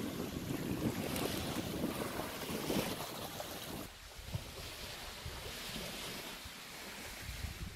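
Outdoor seaside ambience: wind buffeting the microphone over a steady rush of surf. It turns quieter about four seconds in.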